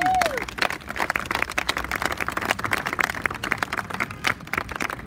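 Crowd applauding: many hands clapping in a dense, irregular patter, with a short rising-and-falling call at the very start.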